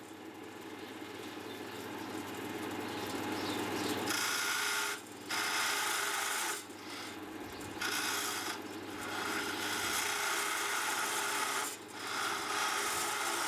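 Parting tool cutting into a spinning wooden spindle on a GMC ML100 wood lathe: a rough scraping hiss, broken by several short pauses, with the lathe's motor running steadily underneath.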